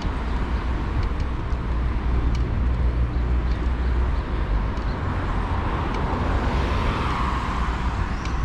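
Urban road traffic heard from a moving bicycle: a steady rumble of cars, with a vehicle swelling past about six to seven seconds in.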